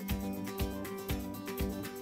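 Background music with a steady beat of about two beats a second over held pitched notes.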